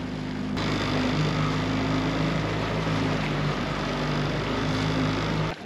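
Dinghy outboard motor running steadily under way, with water and wind rushing past the inflatable; the sound cuts off suddenly near the end.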